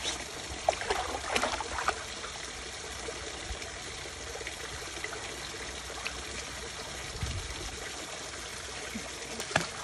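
Shallow stream trickling steadily, with a few light splashes from a dog wading and nosing in the water about a second in and again near the end.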